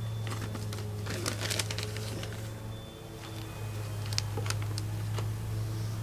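Steady low hum with scattered light clicks and knocks of objects being handled on a workbench, a cluster in the first couple of seconds and a few more about four seconds in.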